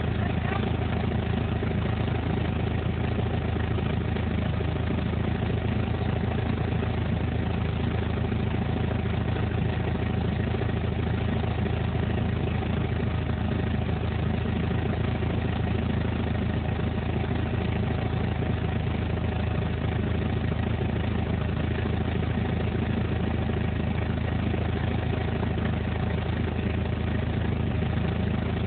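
Caterpillar forklift engine running steadily at an even speed while carrying the load, a constant low drone with no change in pitch.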